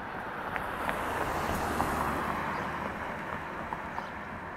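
A car driving past on the street, its tyre and road noise swelling to a peak about two seconds in and then fading away.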